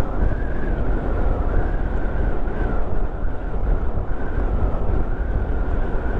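Motorcycle running at road speed, a steady engine rumble mixed with wind rushing over the microphone, with a thin wavering whine above it.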